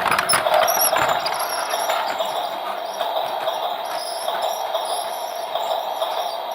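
Toy train running: a steady whir of its small motor and wheels, with a cluster of clicks and rattles in the first second or so.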